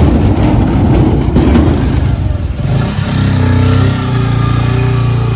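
Motor vehicle engine running, uneven at first, then holding a steady note from about three seconds in.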